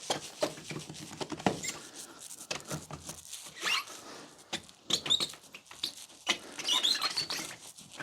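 Hand-polishing a plastic headlight lens with an applicator and polishing compound: irregular rubbing and scuffing with short high squeaks as the pad drags on the plastic.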